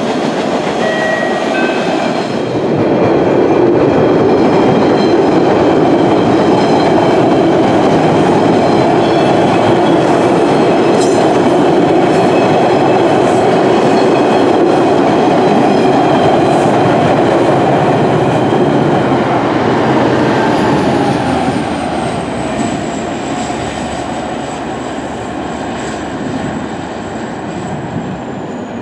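MBTA Orange Line subway train running past on surface track: a loud, steady rumble and clatter of wheels on rail. It eases off after about twenty seconds while a thin high whine slowly falls in pitch.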